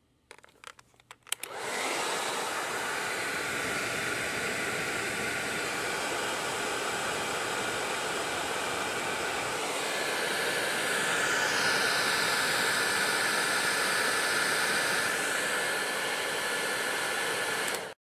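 Panasonic EH-NA94 Nanocare hair dryer running. After a few clicks, it comes on about a second and a half in and runs steadily; a higher whine joins about ten seconds in, and it stops abruptly near the end.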